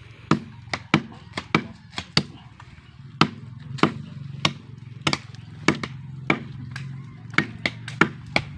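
A machete (bolo) chopping into the trunk of a small live tree at its base: sharp, separate blows about two a second, with a short pause about two seconds in.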